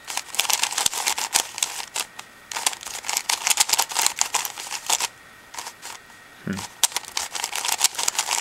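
A Kung Fu Longyuan 3x3 speedcube being turned by hand: rapid runs of plastic clicking and clacking from the turning layers, in three spells with short pauses between. The cube is stiff and dry, with what feels like dried factory lube.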